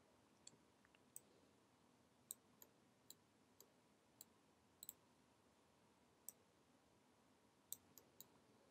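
Near silence with about a dozen faint, sharp clicks at irregular intervals, from a computer mouse and keyboard being worked.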